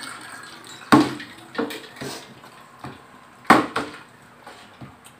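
A handful of sharp, separate knocks and clinks of a drinking glass, pitcher and plastic bottle being handled and set down on a glass-topped table.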